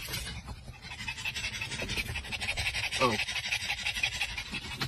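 Pug panting hard in a fast, even rhythm of breaths, over a low vehicle-cabin rumble. A short falling vocal sound breaks in about three seconds in.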